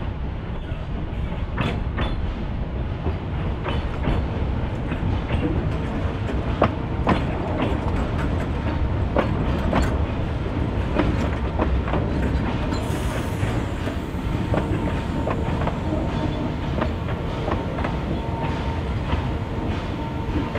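Narrow-gauge steam train running along the line: a steady rumble with frequent sharp clicks of the wheels over rail joints. A faint steady whine joins about halfway through.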